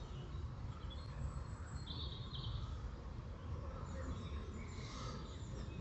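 Quiet outdoor background with a steady low rumble, and a bird chirping twice in quick succession about two seconds in.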